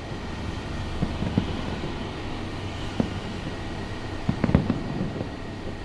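Distant fireworks bursting: several short, muffled bangs scattered through, the loudest cluster about four and a half seconds in, over a steady low rumble of city background noise.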